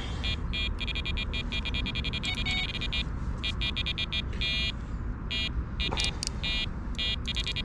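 Electronic carp bite alarms beeping in quick, irregular runs of short, same-pitch beeps as the fishing line is drawn over their sensors, over a low rumble.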